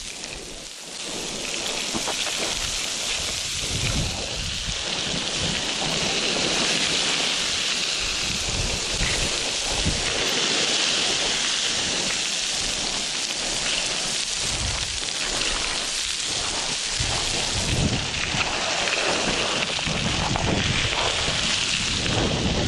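Boots sliding and crunching down a slope of loose scree: a continuous hiss of moving rock with irregular low thumps and rumbles.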